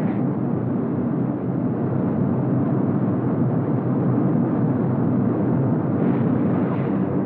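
Steady drone of a B-17 Flying Fortress's four radial engines heard from inside the bomber in flight, on a muffled, dull old film soundtrack.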